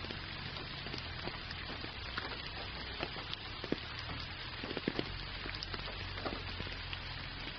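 Gentle rain falling: an even hiss with many scattered ticks of single drops, over a steady low rumble.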